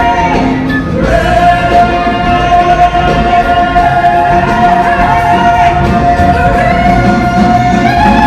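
Musical-theatre singing with accompaniment: a voice holds one long note from about a second in, while higher voices slide above it.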